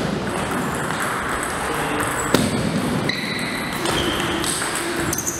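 Table tennis ball being struck by bats and bouncing on the table during a rally: a few sharp hollow clicks, the loudest a little over two seconds in.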